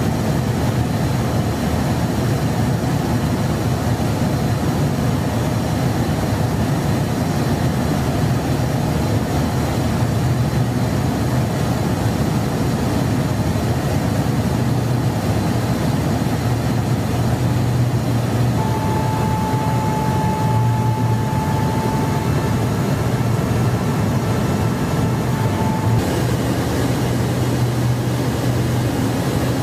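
Steady drone of airflow and engines inside a KC-10 Extender tanker during aerial refueling, with a strong low hum underneath. A thin steady tone sounds for several seconds past the middle, and the drone shifts slightly in character near the end.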